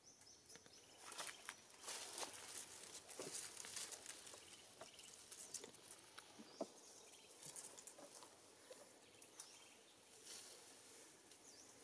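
Faint rustling and crackling of dry leaves and twigs, with scattered small snaps, busiest in the first few seconds.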